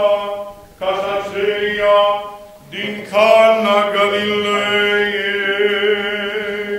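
A man's voice chanting an Orthodox liturgical melody on a nearly level reciting pitch, with short breaks about one second and three seconds in, then one long held phrase.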